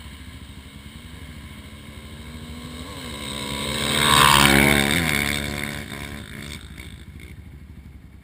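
An ATV engine idling close by throughout, while another ATV engine builds up loud about four seconds in and then drops in pitch and fades, like a machine racing past.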